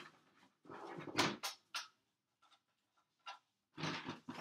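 Handling noise: two bursts of rustling and clattering, a second or so each, with a quiet gap between them.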